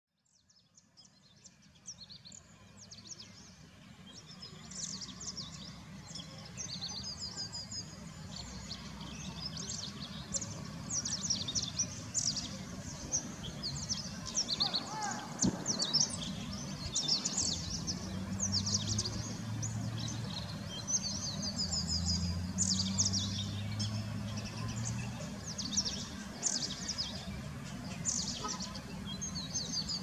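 A chorus of birds chirping and twittering, with many quick high-pitched calls overlapping, fading in over the first few seconds. A low steady hum sits underneath for a while in the second half.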